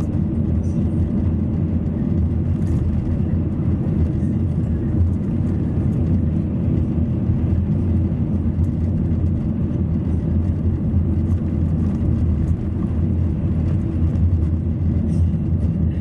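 Car driving, heard from inside the cabin: a steady low rumble of engine and tyre road noise.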